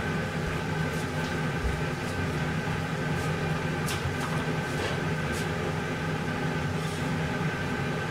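A steady mechanical hum, with a few faint clicks and knocks scattered through it as someone searches the kitchen.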